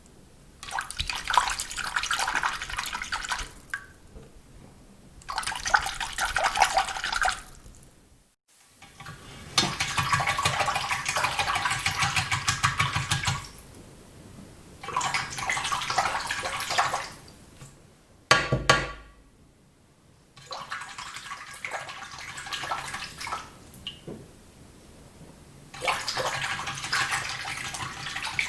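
A razor being rinsed in a sink filled with water: repeated bursts of swishing and splashing, each one to four seconds long, with short pauses between them. About eight seconds in there is a short break, and after it the rinsing is heard from farther away.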